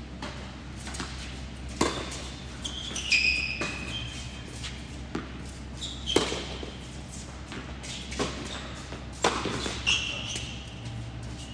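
Tennis rally in doubles: a series of racket-on-ball strikes one to three seconds apart, with sneakers squeaking sharply on the hard court between shots.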